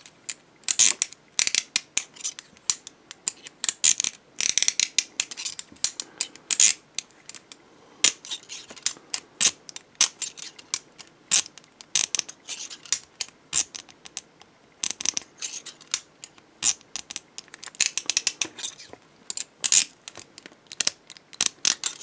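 Rigid metal handcuff's bows swung through the lock, the lock pawls ratcheting over the toothed bows in repeated runs of fast clicks, one side after the other. One side rings brighter and the other duller, a sign of some play inside the cuff, and the clicking sounds tinny, which points to cheap manufacture.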